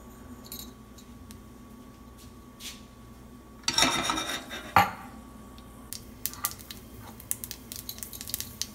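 Frying pan with mustard seeds in hot oil on a gas stove: a short scrape and a sharp knock of the pan being moved about four seconds in, then scattered small ticks as the seeds begin to crackle in the oil.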